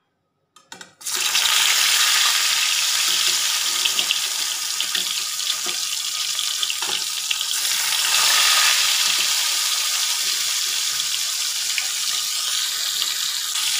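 Koi fish (climbing perch) going into hot oil in a wok: the oil sizzles loudly and steadily from about a second in as the fish fry, swelling briefly near the middle.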